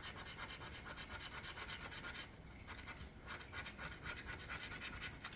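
The coating of a scratch-off lottery ticket being scraped off in rapid back-and-forth strokes, with two short pauses just past the middle.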